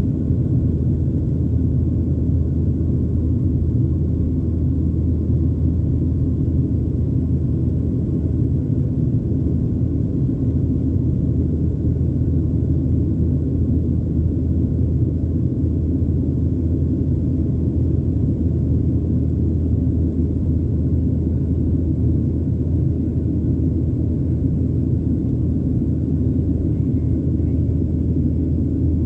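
Steady low rumble inside the cabin of a Boeing 737-900 climbing after takeoff: the drone of its CFM56-7B engines and the rush of air over the fuselage, heard through the cabin walls.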